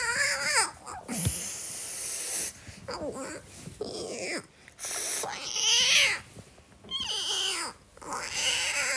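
A cat meowing and yowling in a run of drawn-out, bending calls, with short hisses about a second in and about five seconds in, as from an angry cat.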